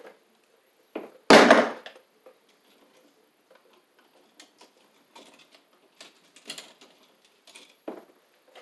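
Small clicks and taps of hand tools: a screwdriver working at an electrical outlet box and tools handled at a belt tool pouch. There is one much louder clatter about a second and a half in.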